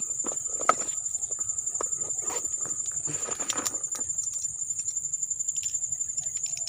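Insects making a steady, high-pitched pulsing buzz. Close rustling and clicking from hands at work sit over it in the first four seconds, with one sharp click under a second in.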